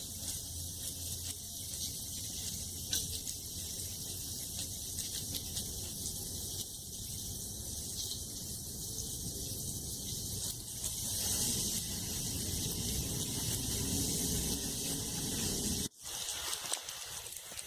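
Steady rain falling: an even hiss with scattered ticks of drops, louder for a few seconds past the middle. It cuts out abruptly near the end, then resumes.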